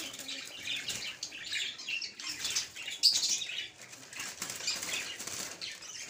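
Caged pet birds flapping their wings in a flurry against the wire, with scattered short high chirps; the birds are agitated by a hand at the cage.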